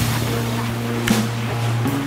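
Background music: sustained low notes with a single percussive hit about a second in.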